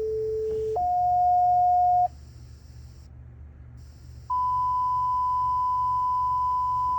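Two-tone sequential paging alert from a Unication G5 P25 voice pager: a lower steady tone steps up to a higher one, ending about two seconds in. After a two-second pause a single long, higher steady tone sounds, over a faint low hum.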